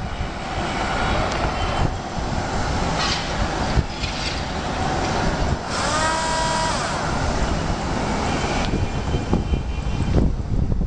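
Small DC motor of a homemade RC boat spinning its propeller in the air, a steady whirring noise. A brief higher-pitched tone sounds about six seconds in.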